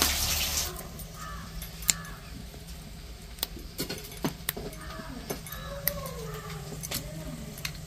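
Onions sizzling in hot oil in a kadai, cutting off under a second in. Then birds calling in the background, with a string of small, sharp clicks and taps as dry whole spices are handled over a steel bowl.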